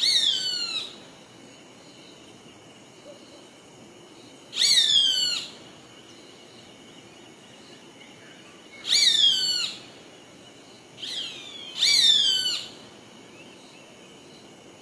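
Roadside hawk calling: five high, falling screams, each under a second, coming about every four seconds, with the fourth fainter and just before the fifth.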